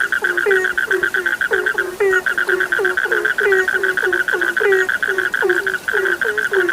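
Frogs calling in chorus: short, low croaks repeat about three times a second over a continuous, rapid, higher-pitched trill, which breaks off briefly about two seconds in.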